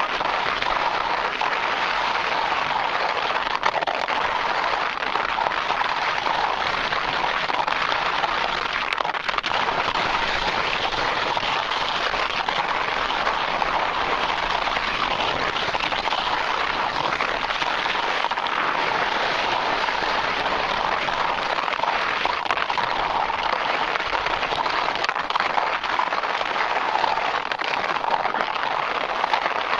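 Skis sliding fast down a snowfield, edges scraping over summer snow in a steady, unbroken hiss.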